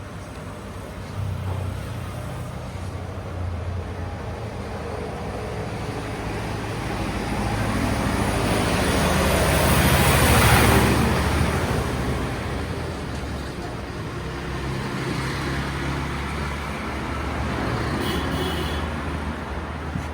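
A motor vehicle passing on a road, its engine and tyre noise growing louder to a peak about halfway through and then fading away, over a steady low engine hum.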